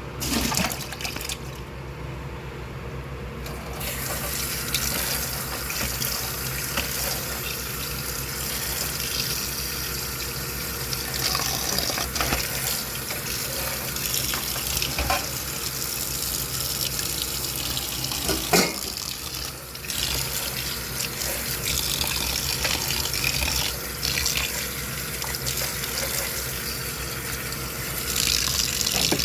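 Kitchen tap running into a sink in a steady splashing hiss, fuller after about four seconds, with one sharp knock about two-thirds of the way through.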